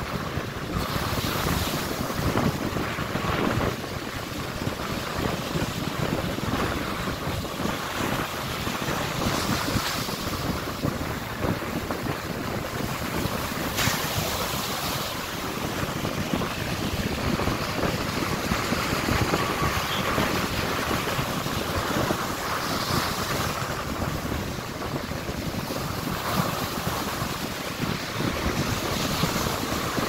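Rough ocean surf breaking and washing up the beach, with wind buffeting the microphone.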